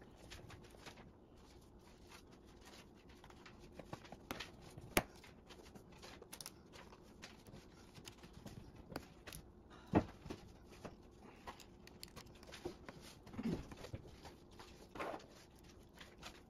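Light handling noises from work on a Lenovo x240 laptop's keyboard and frame: scattered small clicks, taps and rustles of fingers on plastic and tape. Two sharper clicks stand out, about five and ten seconds in.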